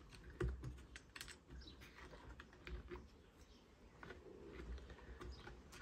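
Faint, irregular light clicks and taps of fingers fitting a small brass retaining piece into the plastic intake housing of a Stihl 026 chainsaw.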